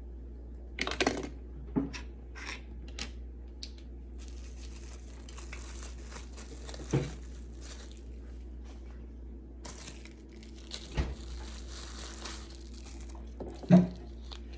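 Crinkling and tearing of packaging while injection supplies are handled, with scattered small clicks and knocks; the sharpest knock comes near the end.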